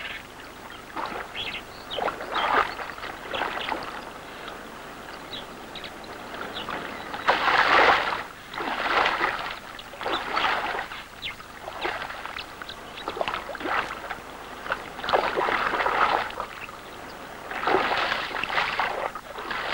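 Irregular bursts of splashing from a hooked salmon thrashing at the surface of shallow river water, each about a second long, the loudest about a third of the way in and near the end.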